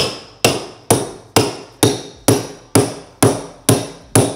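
Ten sharp, evenly spaced tool strikes, about two a second, from fastening and setting a carpet stair runner onto a stair.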